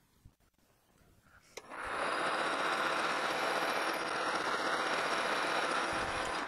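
Metal lathe starting with a click about one and a half seconds in, then running steadily with a high whine while boring the bearing seat in an aluminum fidget-spinner blank; the sound cuts off suddenly at the end.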